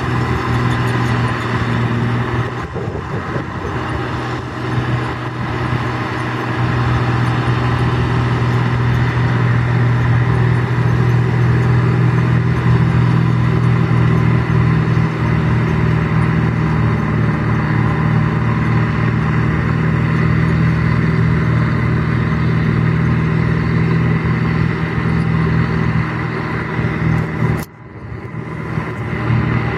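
Bizon Z056 combine harvester's naturally aspirated six-cylinder diesel engine running steadily with an even drone. The sound eases slightly a few seconds in, and drops out for a moment near the end before resuming.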